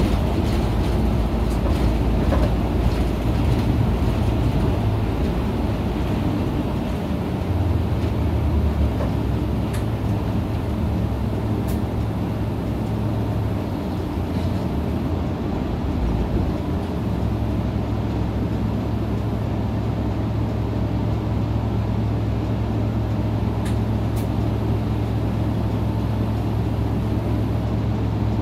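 Isuzu KL-LV280N1 route bus's diesel engine running, heard from inside the passenger cabin. It makes a steady low drone whose note shifts about 8 seconds in and again about 17 seconds in, then holds steady.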